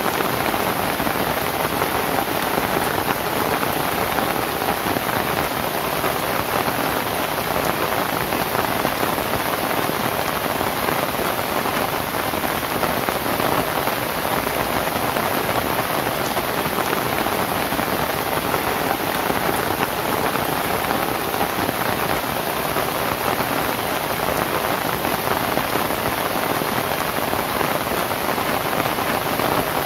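Steady rain falling on a thatched roof of dried lontar (palmyra palm) leaves: a dense, even patter of drops with no thunder.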